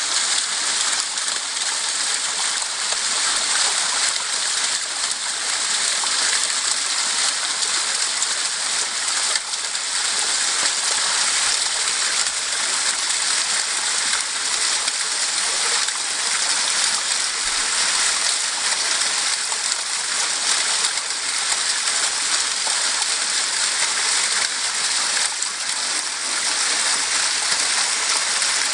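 Small woodland waterfall: stream water spilling down rock ledges and splashing into a pool, a steady hiss.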